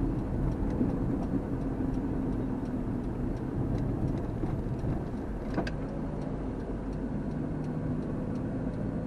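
Suzuki APV van driving, heard from inside the cabin: a steady engine and road hum, with a single sharp click a little past halfway.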